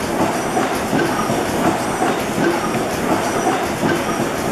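1917 Worthington Snow 600-horsepower reciprocating natural gas engine running, a steady rhythmic mechanical clatter.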